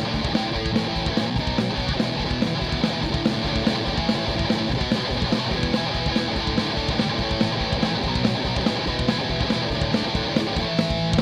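Live punk rock band playing an instrumental intro: distorted electric guitar strumming over driving drums and bass, with a steady beat and no vocals yet.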